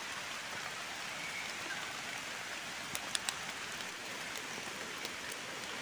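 Steady rain falling on forest leaves and ground, with a few sharp ticks about three seconds in.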